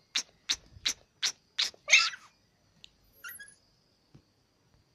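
Toy Pomeranian yapping in quick short barks, about three a second, ending in a louder bark about two seconds in. A fainter short yelp follows about a second later.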